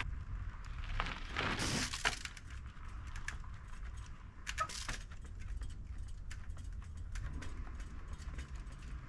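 Trials bicycle working over rock: scattered clicks and knocks from tyres, frame and drivetrain, with a short rushing noise about a second and a half in, over a steady low rumble.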